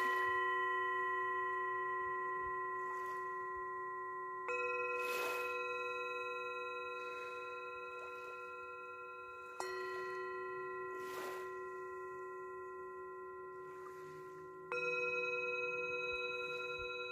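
Two alternating bell-like chime tones, a new one struck about every five seconds and left to ring and fade slowly, cueing breathe in and breathe out at six breaths a minute. Between the strikes, soft washes of small waves on the shore.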